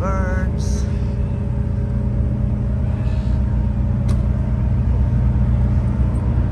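Ferry's diesel engines running with a steady low drone and hum as it comes in to the dock. A brief voice sound at the very start and a single click about four seconds in.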